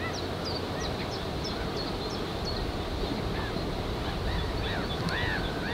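Wetland ambience: a steady hiss of wind, with small birds calling over it. Short, high, falling notes come about three or four a second for the first couple of seconds, and arched whistles come now and then, louder and closer together near the end.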